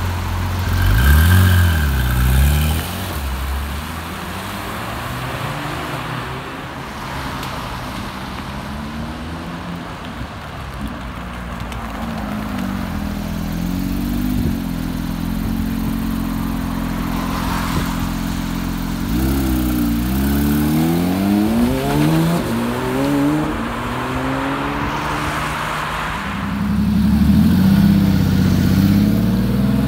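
Porsche 911 flat-six engines idling, with the throttle blipped up and down a couple of seconds in and again about two-thirds of the way through. A longer, louder rev comes near the end.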